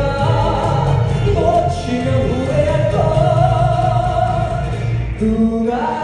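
Live pop song played loud through a concert-hall PA: a band with a steady beat under a sung melody with long held notes.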